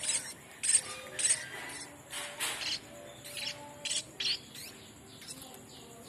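Young munias chirping in short, sharp, high calls, typical of fledglings begging while being hand-fed. The calls come thick and fast at first and thin out to fainter chirps after about four seconds.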